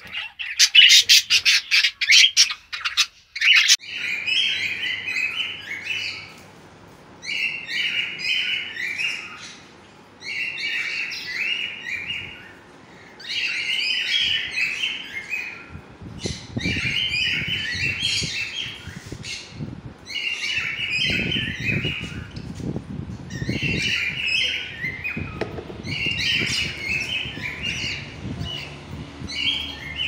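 Caged pet birds calling: loud harsh squawks for the first few seconds, then short bursts of quick high chirps that repeat about every three seconds, with low rustling from about halfway on.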